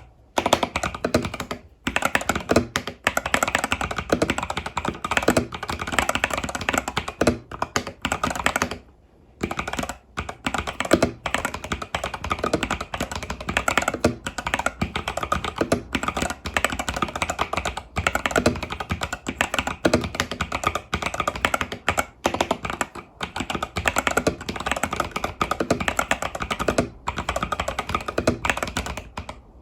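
Fast, continuous typing on an Epomaker TH80 Pro mechanical keyboard with Epomaker Budgerigar tactile switches and stock keycaps: a dense run of key clacks, with brief pauses about 2 s in, around 9 s and near the end.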